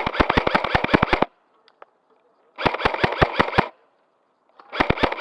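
Airsoft gun firing on full auto in three rapid bursts of about a second each, with short pauses between them. The first burst ends about a second in, the second comes near the middle, and the third starts near the end.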